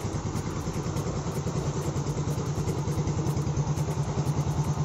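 Yamaha Nouvo Z scooter's single-cylinder four-stroke engine idling with a steady, even pulse, freshly refreshed with a replacement cylinder block, stock head and stock cams, and running without the knock it had before.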